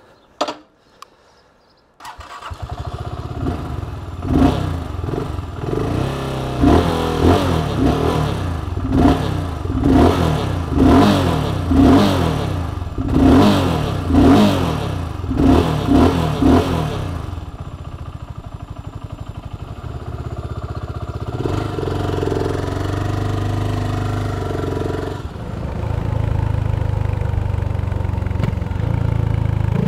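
BSA Gold Star 650's single-cylinder engine starts about two seconds in. It is then revved in a run of about a dozen quick throttle blips roughly a second apart, and settles to a steadier run as the bike rides off.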